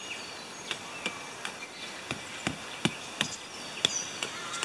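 Irregular sharp clicks and knocks, about a dozen, from a small one-man tent being pitched, over a faint background of insects.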